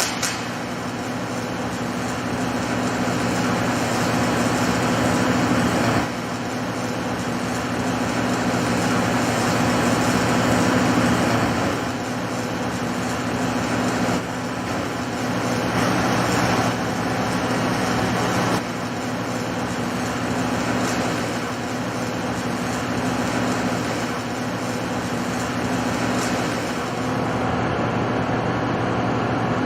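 Rotoweld 3.0 automated pipe spool welding machine at work: a steady electrical hum under a dense hiss. The level shifts in steps every few seconds.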